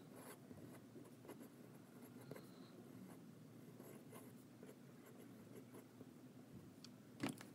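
Faint scratching of a fountain pen's flex nib on paper as words are written by hand. The nib is a Fountain Pen Revolution flex nib fitted to a Jinhao pen.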